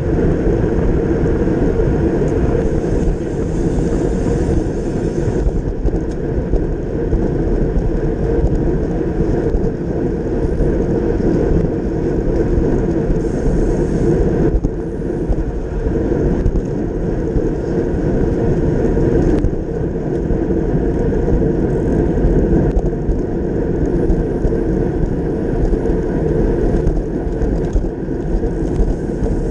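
Steady wind rush buffeting the microphone of a bike-mounted camera on a road bike moving at racing speed in a group of riders.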